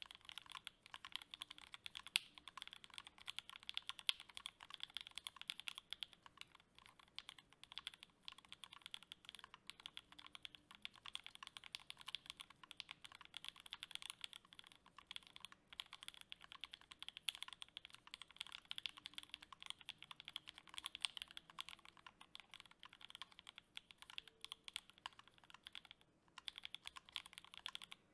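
Steady, fast typing on a KBDFans D60 HHKB-layout 60% mechanical keyboard with C3 Equalz Tangerine linear switches, an FR4 plate and GMK Laser keycaps: a dense stream of key strikes, broken by a short pause near the end.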